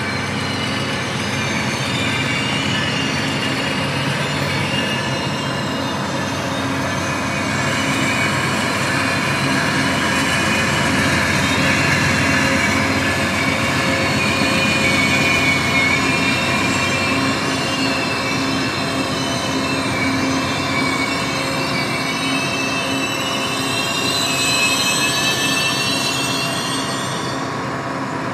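Two Amtrak GE P42DC diesel locomotives and their passenger cars rolling slowly past, the engines running with a steady low drone. The wheels give a wavering high-pitched squeal on the rails that grows strongest late on and stops abruptly just before the end.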